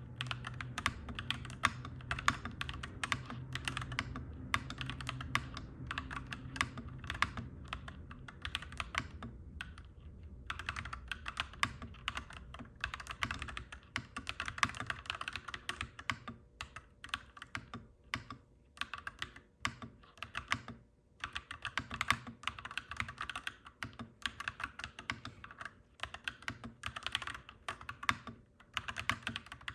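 Clacky mechanical keyboard being typed on in fast runs of keystrokes, broken by brief pauses. A low background rumble fades away about a third of the way in.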